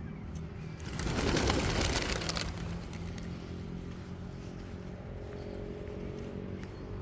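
Road traffic: a vehicle passes close by about a second in, a loud rush of tyre and engine noise that swells and fades, over a steady low engine hum.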